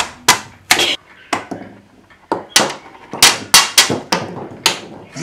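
About a dozen sharp, irregularly spaced knocks of carrot slices and a kitchen knife against a cutting board and a bowl, the first ones close together and the later ones as slices are dropped one by one into the bowl.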